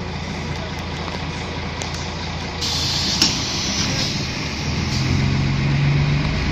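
City bus engine idling at a stop, then a pneumatic hiss with a sharp clunk about three seconds in as the air-operated doors close. Near the end the engine note strengthens as the bus pulls away.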